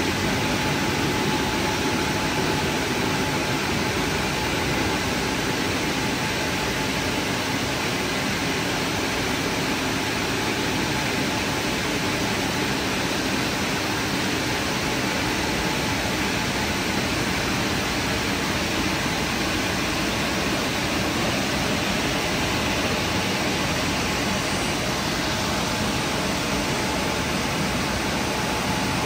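WashTec SoftCare2Pro gantry car wash's blower dryer running: a steady, even rush of air with no breaks.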